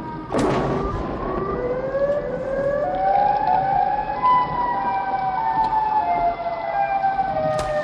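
Civil-defence air-raid sirens wailing, several overlapping tones rising over the first few seconds and then slowly falling. A sudden bang cuts in about half a second in, and a sharp crack comes near the end.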